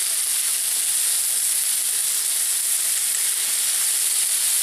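Swordfish steaks sizzling steadily as they sear on a hot ridged grill pan, a constant high, even hiss.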